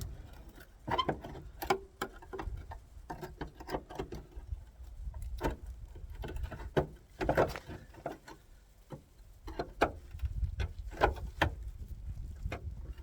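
Scattered light clicks, taps and knocks of hand tools and metal parts being worked at a seized car door latch, coming at irregular intervals.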